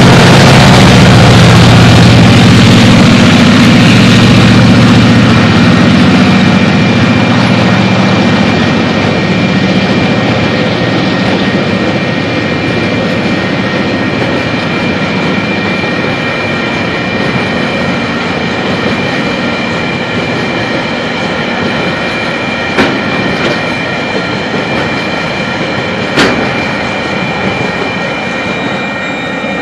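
Freight train passing: the diesel locomotives' engines run loudly at first, working up a grade, and fade over the first several seconds as the wagons follow with a steady rolling rumble that slowly dies away. A high steady tone sounds over the rumble, and two sharp knocks come near the end.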